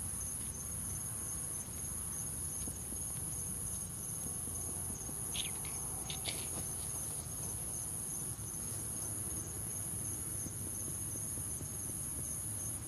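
Steady, high-pitched chorus of insects, with a couple of faint short ticks about halfway through.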